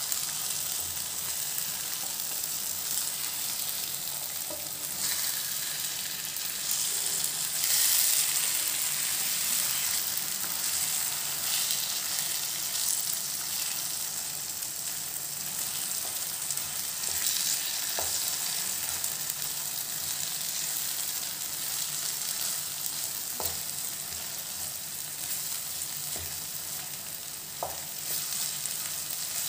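Eggs frying in onion-tomato masala in a nonstick pan, sizzling steadily while a wooden spatula stirs and breaks them up. A few light knocks of the spatula on the pan come in the second half.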